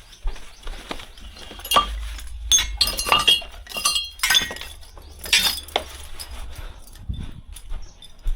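A run of irregular sharp metallic clinks and clanks, hard objects knocking together with a short ring, bunched in the middle of the stretch.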